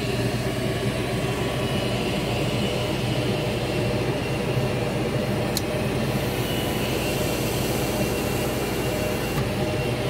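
Goodman high-efficiency gas furnace's draft inducer motor starting up and running with a steady hum as the furnace begins its second ignition try. A short click comes a little over halfway through.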